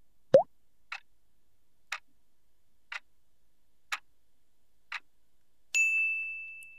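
Quiz countdown sound effects: a short rising pop, then five clock ticks one per second, then a bright ding that rings and fades as the answer is revealed.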